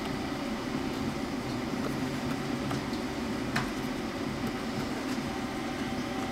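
Steady low hum of background room noise, with a faint thin tone running through it and a single short click about three and a half seconds in.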